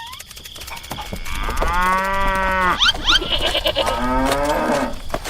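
Two long, pitched animal-like calls, the second sliding down in pitch, with two quick rising chirps between them.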